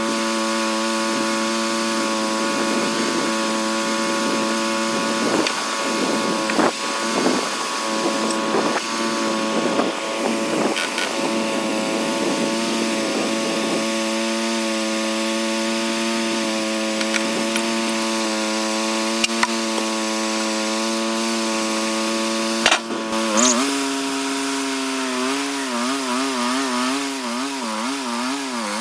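Sawmill engine running steadily as the saw cuts through a locust log. A sharp click sounds about 23 seconds in, and the engine's pitch then drops and begins to waver.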